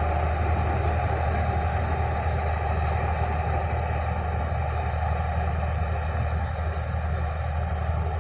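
Combine harvester running steadily: a deep, constant engine hum under an even mechanical rush.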